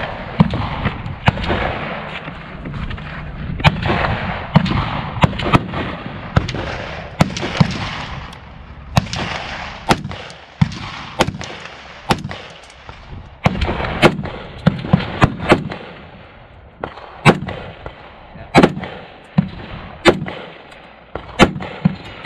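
Gunshots from an AR-15-style rifle fired one at a time, mixed with other rifles along the firing line: a string of irregularly spaced sharp cracks, some close and loud, others fainter.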